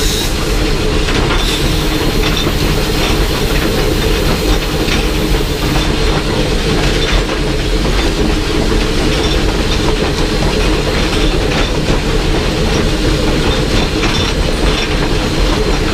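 Loud steady running noise heard from inside the cab of steam locomotive No. 25 under way: the engine and tender rumble and rattle, and the wheels click irregularly over the rail joints.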